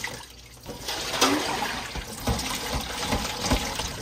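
Kitchen tap water running into a sink, starting about a second in, with a few light clinks of utensils being washed.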